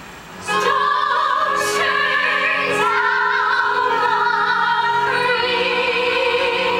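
Women's chorus of a stage musical singing a long sustained chord, coming in about half a second in and stepping up in pitch about three seconds in.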